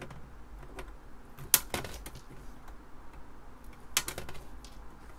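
Flush cutters snipping the excess resistor leads off a freshly soldered circuit board: a scattering of sharp clicks, the two loudest about a second and a half in and about four seconds in.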